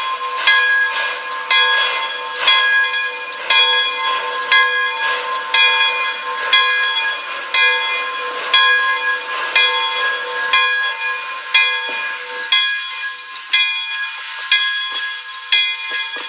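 Pere Marquette 1225's locomotive bell ringing steadily, about one stroke a second, as the 2-8-4 Berkshire steam locomotive moves off slowly. Under the bell is a steady hiss of steam venting from the cylinder cocks, with a steady tone that stops about twelve seconds in.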